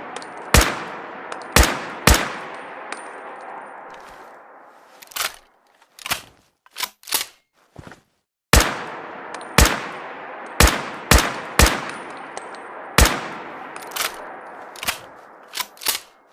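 Rifle sound effect: two volleys of sharp shots, each about half a second to a second apart and trailing a long echo. Between and after the volleys comes a short run of lighter metallic clicks.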